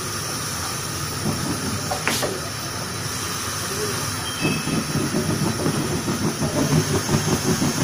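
Faber glass-top gas hob burners being lit and burning, giving a steady hiss of gas and flame. There is a sharp click about two seconds in, and a rapid flutter sets in about halfway.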